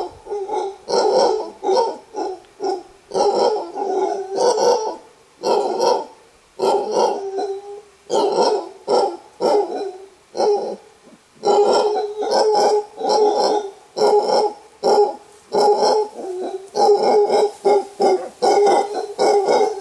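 Male mantled howler monkey roaring: a long series of short, hoarse barking roars, about two or three a second, in runs broken by brief pauses. This is the alpha male's warning roar.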